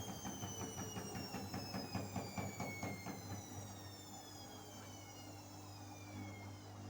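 Bosch Series 4 washing machine at the end of its final spin, the motor's whine falling steadily in pitch as the drum slows down. A fast rhythmic knocking from the spinning drum fades out about halfway through.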